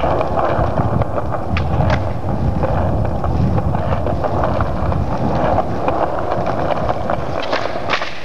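Skateboard wheels rolling over rough pavement: a loud, steady rumble, with a few sharp clacks from the board.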